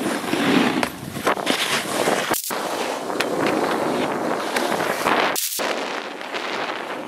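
Snowboards scraping and carving over packed snow, with wind buffeting the microphone and many short sharp crackles from the boards on the snow. The sound drops out briefly twice, about two and a half and five and a half seconds in.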